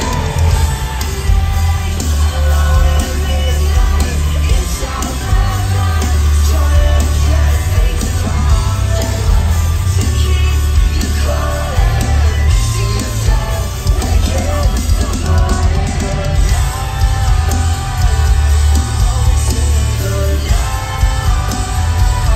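Live rock band playing loud: a male lead singer over electric guitars and a heavy, booming low end.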